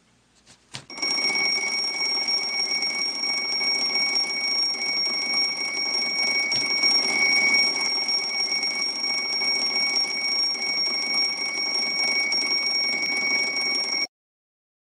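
Twin-bell alarm clock ringing continuously, starting about a second in and cutting off suddenly near the end.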